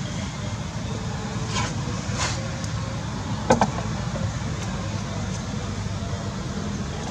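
Steady low background rumble, with a few short crisp crunches and one sharper, louder snap about halfway through.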